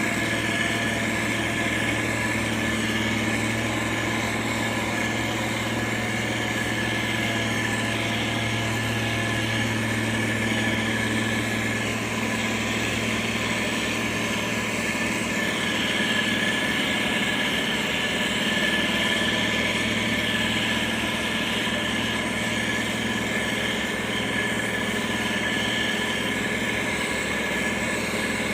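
Motor grader's diesel engine running steadily, a constant drone with a thin high whine over it.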